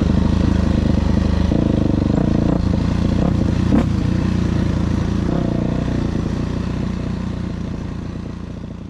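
2000 Yamaha YZ426F dirt bike's single-cylinder four-stroke engine running steadily, its pitch shifting slightly a couple of times, with one sharp click about four seconds in. The sound fades out near the end.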